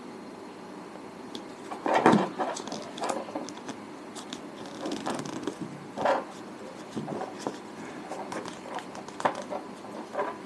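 Handling noise from sticking the cover wrapper back onto a modem battery: scattered crinkles, rustles and small taps, the loudest about two seconds in, with others around six and nine seconds in.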